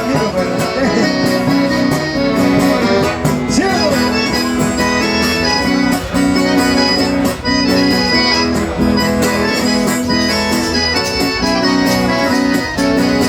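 Instrumental passage of a Brazilian country-style song, led by accordion playing held chords over guitar and bass.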